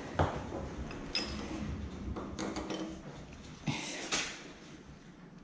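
Metal clinks and knocks as a steel front axle is handled and pushed through a motorcycle's fork leg and wheel hub, with a sharp click just after the start and a few lighter clicks and a scrape later on.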